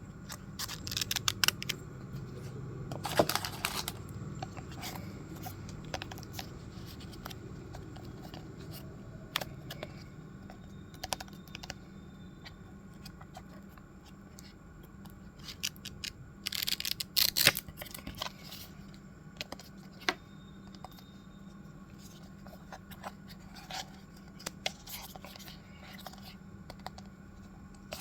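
Stationery and packaging being handled: scattered clicks, rustles and scrapes, busiest about a second in, around three seconds and around seventeen seconds, over a faint steady hum.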